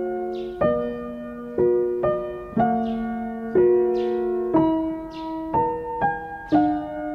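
Gentle background piano music, a soft chord struck about once a second and left to ring and fade.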